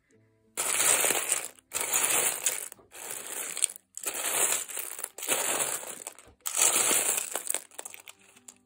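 Loose buttons clattering as a hand stirs and rakes through a button box, in six rattling bursts of about a second each.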